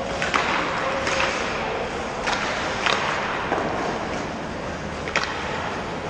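Ice hockey play in a rink: a steady hiss of skate blades on the ice, broken by about five sharp clacks of sticks and puck spread through the few seconds.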